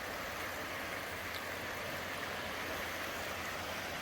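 Steady wash of small waves on the Lake Michigan shore, an even rushing noise with no breaks.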